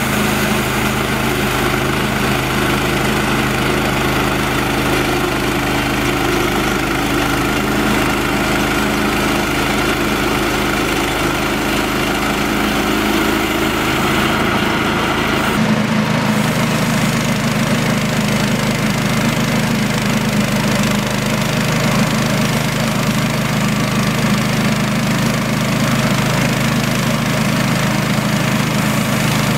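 Portable band sawmill's engine running steadily while its band blade saws lengthwise through a log. The engine note changes abruptly about halfway through, then holds steady again.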